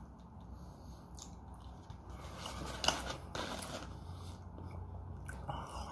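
Eating sounds: a metal fork clicking and scraping against plastic food containers, with chewing between, and one sharp click about three seconds in.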